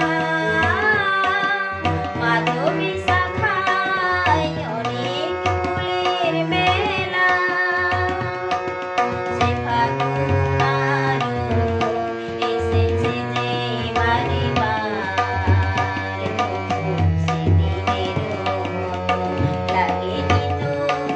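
A woman sings a Bengali song in a gliding, ornamented line while playing held chords on a harmonium, with a tabla rhythm in the accompaniment.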